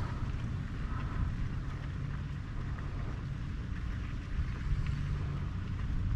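Steady low rumble of wind buffeting the microphone, with a faint hiss of water around the kayak.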